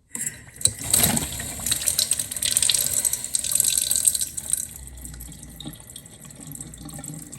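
Water rushing through the plumbing and freshly changed filter housings as the main water supply is turned back on. The flow is loudest for the first four seconds or so, then settles to a quieter steady hiss.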